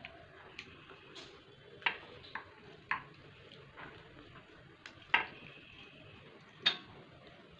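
Eating mango chutney by hand: a scatter of short, sharp wet smacks and clicks from mouth and fingers. The loudest come a little past five seconds in and again near the end.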